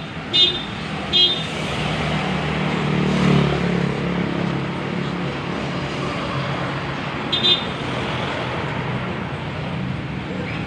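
Steady street traffic with a vehicle engine passing, loudest about three seconds in. A few short metallic clinks come near the start and again about seven seconds in, from the mechanic's hands working at the motorcycle's rear wheel and chain.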